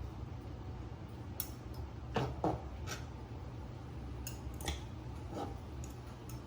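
About half a dozen short clicks and scrapes of kitchen handling, food and plastic meal-prep containers being worked with, the loudest pair about two seconds in, over a steady low hum.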